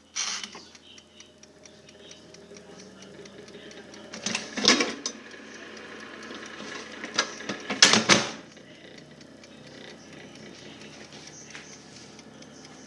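Microwave oven switched on and running with a steady hum, with a louder rattling clatter twice, about four and eight seconds in.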